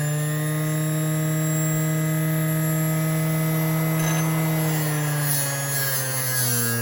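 Small electric power tool motor running steadily with a constant whine, its pitch dropping slightly about five seconds in.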